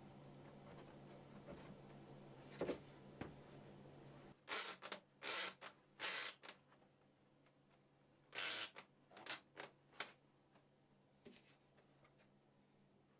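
Several short rubbing or scraping strokes in two quick clusters, with a lone stroke before them.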